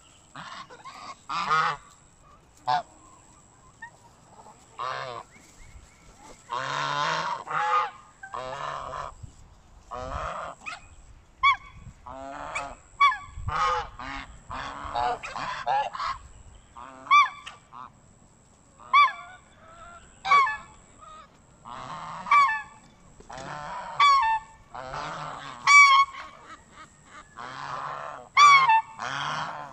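Geese honking repeatedly, many short calls in quick succession and sometimes overlapping, with a quieter stretch a few seconds in.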